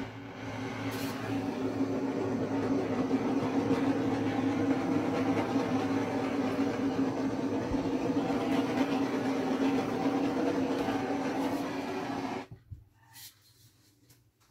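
Small handheld torch burning with a steady hiss as its flame is passed over wet black acrylic paint. The flame cuts off sharply about twelve seconds in, followed by a couple of faint knocks.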